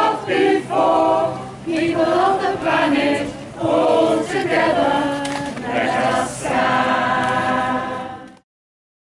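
A mixed community choir singing a protest song unaccompanied, ending on a long held chord; the sound cuts off suddenly near the end.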